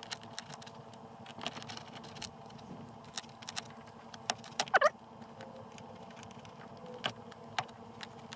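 Utility knife cutting into a car's foam-backed fabric headliner: scattered small clicks and scratches of the blade, with a short squeak about five seconds in.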